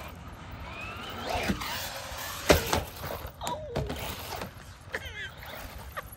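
RC monster truck's electric motor whining up in pitch, then one sharp thunk about two and a half seconds in as the truck hits the ground.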